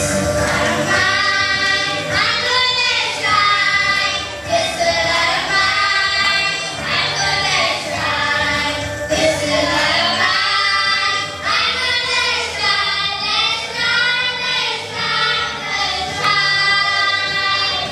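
A group of young boys singing a song together into handheld microphones.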